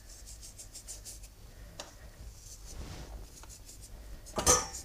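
Salt sprinkled by hand from pinched fingers onto raw meat and sweet potato wedges in a metal roasting pan: faint scattered ticks of falling grains and the rub of fingers. A short louder rustle comes near the end.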